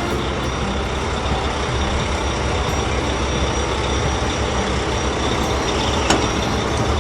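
Cartoon dump truck's engine sound effect running steadily with a heavy, noisy rumble, and a single sharp click about six seconds in.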